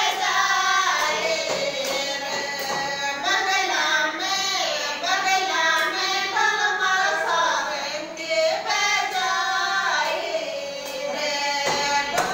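Women singing a Rajasthani khyal folk song together, with hand claps keeping time.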